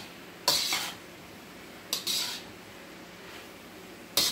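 A spatula scraping and clattering against a non-stick frying pan as sliced beef and vegetables are tossed: three short scrapes about a second and a half apart.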